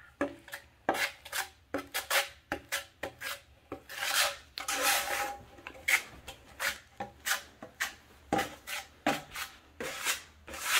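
Metal putty knife scraping and spreading drywall joint compound across a metal hawk in short, irregular strokes, with a couple of longer scrapes near the middle, while the powder and water are worked together to a dough-like consistency.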